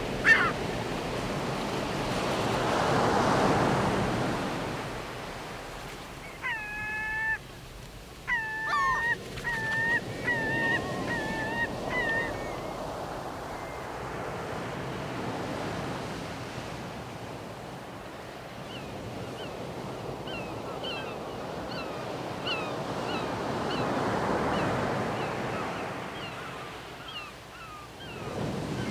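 Sea waves washing on the shore, swelling twice. A bird gives a series of short harsh calls about six to twelve seconds in, and short high chirps repeat through the last third.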